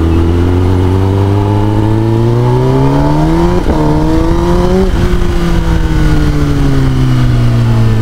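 Kawasaki Ninja ZX-10R's inline-four engine through an Akrapovic full-system exhaust, pulling under throttle while riding. Its pitch climbs for about three and a half seconds, breaks briefly there and again near five seconds, then slowly falls as the throttle eases.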